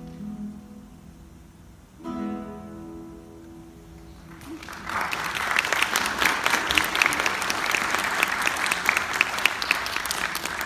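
A classical guitar ensemble holds a chord that fades, then strikes a final chord about two seconds in that rings out and dies away. About four and a half seconds in, the audience breaks into applause, louder than the music.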